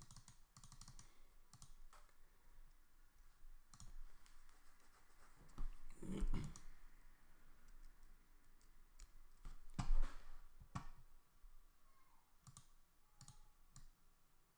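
Scattered clicks of a computer mouse and keyboard, with two louder knocks about six and ten seconds in.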